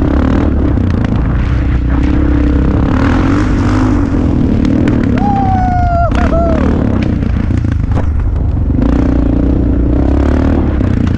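Off-road vehicle's engine running with a steady, loud low rumble.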